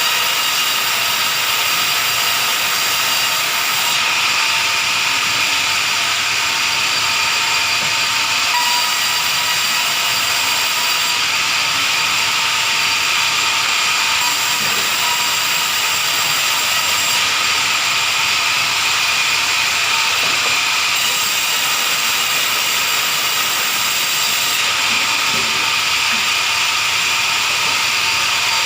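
Wood-sawing machine running steadily, a constant high whine over a hiss.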